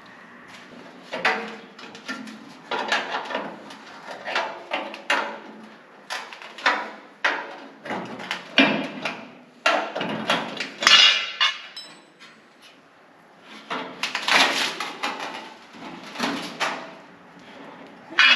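Metal trim molding clip being worked loose by hand from behind a car fender: irregular clicks, knocks, scrapes and small metallic rattles, with a brief lull about twelve seconds in.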